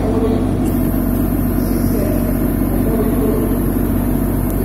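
The machinery of a mobile earthquake simulator running steadily: an even, engine-like drone with a low hum.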